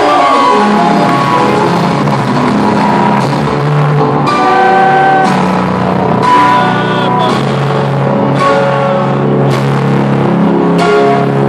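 Loud electronic dance music played over a concert hall sound system: melodic synth lines over a pulsing bass line, with a few sharp hits cutting in near the end.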